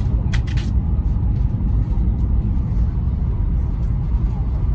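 Steady low rumble of a high-speed train's passenger cabin while the train runs at speed, with a few short clicks near the start.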